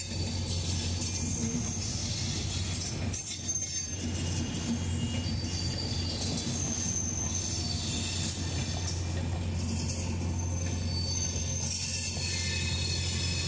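LHB passenger coaches of an Indian Railways express rolling past as the train departs, a steady rumble of wheels on rails with thin high wheel squeals now and then.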